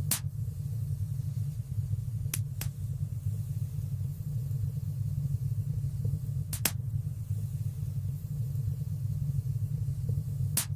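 Fire crackling in a fireplace: a steady low rumble of burning with a few sharp pops, two in quick succession about two and a half seconds in, another midway and one near the end.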